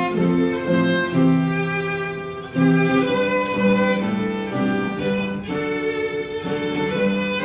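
Instrumental music led by violin over other bowed strings, playing a melody in held notes that change every half second or so, with a short drop in loudness about two and a half seconds in before the next phrase starts.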